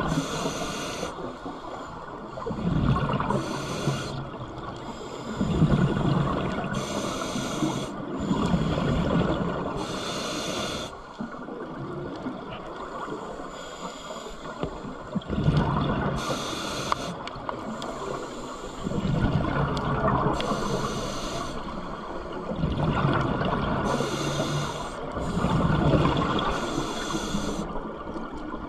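Scuba regulator breathing heard underwater: every few seconds a short hissing inhale through the regulator, and between them a louder bubbling exhale.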